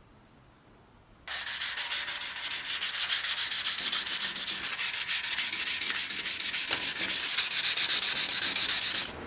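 Sandpaper rubbed by hand over the curved wooden top of a vegetable grater in fast back-and-forth strokes. The rasping starts abruptly about a second in and stops just before the end.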